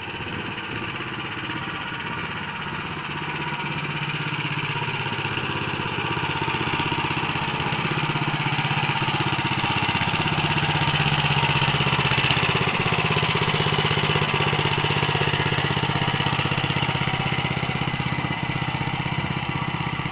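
Motor Sich MB-9E walk-behind tractor engine running steadily as the machine drives up and past, growing louder toward the middle and then easing a little.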